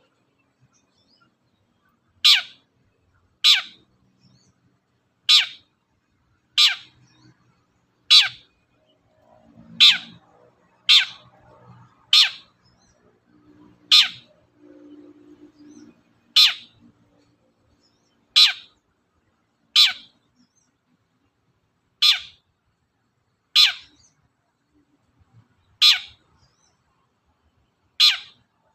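Long-tailed shrike (cendet) giving the same short, loud call over and over, about sixteen times at uneven gaps of one to two and a half seconds.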